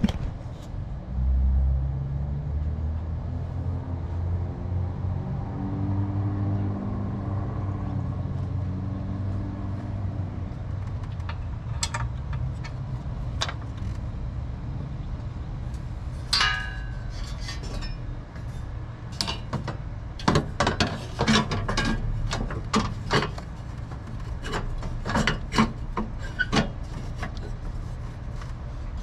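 Hand tools clinking and knocking on metal parts during work on a car, sparse at first and then in quick clusters in the second half. Underneath runs a steady low rumble, and a low hum swells and fades over the first ten seconds or so.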